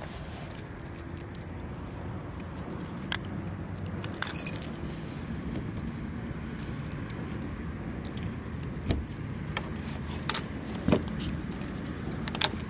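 A vehicle engine running steadily with a low rumble, with keys jangling and a few sharp clicks scattered through it.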